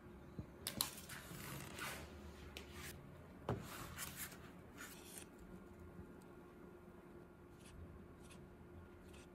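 Hands working at a resin craft bench: light clicks, taps and brief rustles as silicone molds and tools are handled, busiest in the first five seconds and sparse after that.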